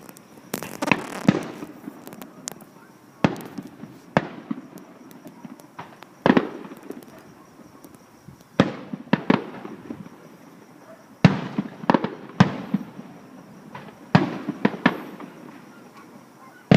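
Fireworks shells bursting at a distance: irregular sharp bangs every second or two, some in quick clusters of two or three, each trailing off in a short echo.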